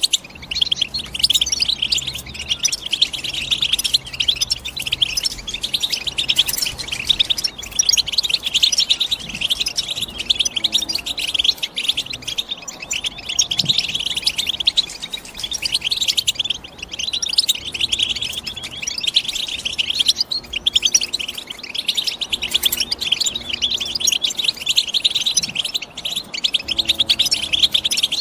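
European goldfinch singing: a continuous run of rapid twittering and chirping notes with no real pause.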